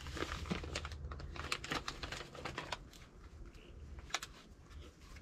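Soft clicks and rustles of small things being handled, with one sharper click about four seconds in, over a low hum that fades after the first second and a half.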